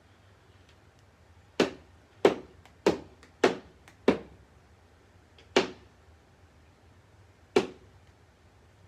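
A 3D-printed flexible PLA tennis ball hitting a hard surface seven times, each hit a sharp knock with a short ringing tail. The first five come in quick succession, about one every half second, then two more further apart.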